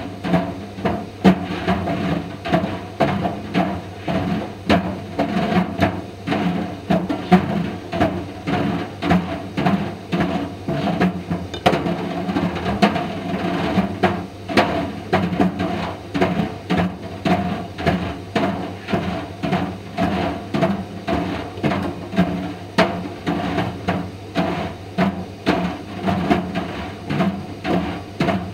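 Indesit IDV 65 tumble dryer running with a steady hum as Mister Steamy plastic dryer balls tumble in the drum. The balls knock against the drum in a rhythmic clatter, about once a second.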